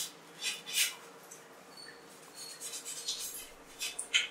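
Dishes being washed by hand: scattered soft rubs and light clinks of a plate.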